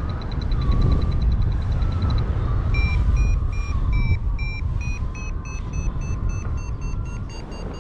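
A paragliding variometer beeps about three times a second from about three seconds in, its pitch slowly rising: the climb tone that signals lift in a thermal. Wind rushes on the microphone under it.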